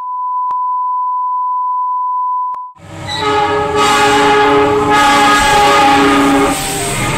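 A steady test-pattern tone stops abruptly after a little under three seconds. A diesel locomotive's multi-tone horn then blows loudly, its chord changing several times.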